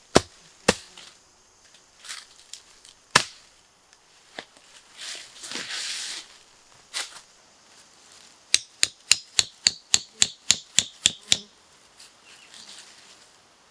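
Sharp blows struck on wood, as in bushcraft chopping or hammering. A few single strikes are spaced out, with rustling between them. Then comes a quick, even run of about a dozen blows, about four a second.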